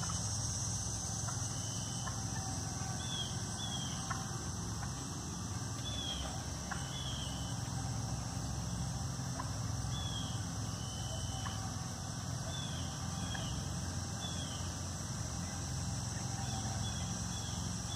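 Turkeys clucking from their roost in the trees: short, scattered calls every second or two, over a steady high hiss.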